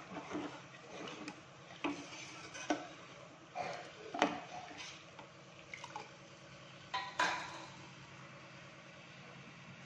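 Steel ladle stirring gravy in a stainless steel pot, scraping and clinking against the pot's side and rim at irregular moments, then stopping near the end.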